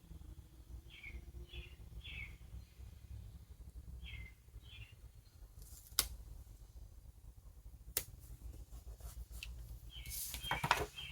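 Faint bird chirps: a few short falling notes, three in quick succession and then two more a couple of seconds later. Two sharp clicks follow, and there is rustling near the end.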